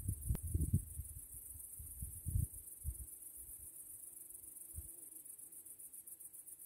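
Wind buffeting the microphone in low gusty rumbles, strongest at the start and easing off. Under it runs a steady high, fast-pulsing chirring of insects.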